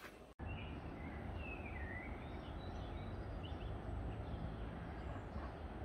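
Outdoor ambience starting abruptly a moment in: small birds chirping several times over a steady low rumble of wind on the microphone.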